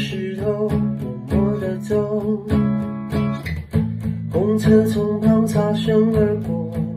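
Acoustic guitar strummed in steady chords while a man sings long held notes over it.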